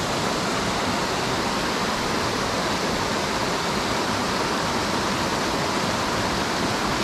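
Small cascade on a mountain creek: water spilling over rocks into a pool, a steady, unbroken rush.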